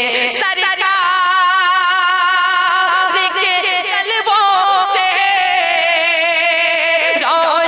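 Male voice singing a naat, holding long drawn-out notes with a wavering vibrato. The pitch drifts slowly down and rises in a quick run near the end.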